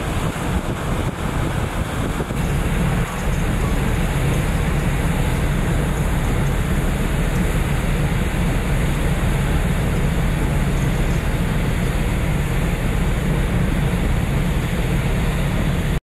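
Steady low rumble of ship engines under a wide hiss of wind and water, a little louder from about three seconds in.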